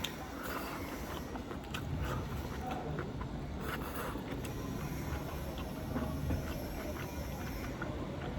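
Eating sounds, with chewing and scattered small clicks, over a steady low background rumble.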